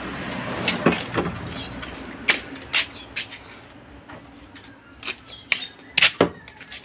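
Handling clatter of an old metal frying pan and small tools on a work table: a string of sharp knocks and clinks at uneven intervals, with a rough scraping rustle over the first couple of seconds. The loudest are two knocks close together near the end.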